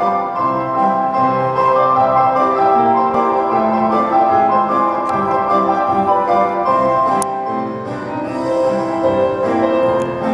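Instrumental music led by piano, with sustained notes.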